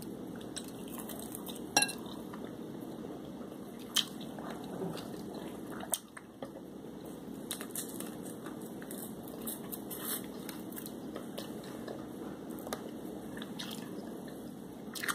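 A person eating up close: chewing and mouth noises while licking food from the fingers. There are small clicks throughout and three sharper clicks, about two, four and six seconds in.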